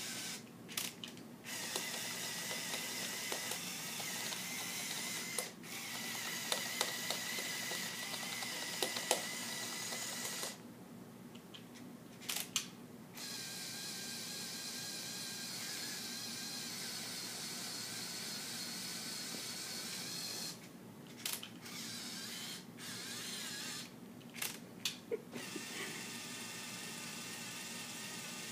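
Lego 8043 motorized excavator's electric motors and gear trains whirring in runs of several seconds. The runs stop and restart with short gaps, and the pitch changes between them as different functions are driven. A few light clicks fall in the gaps.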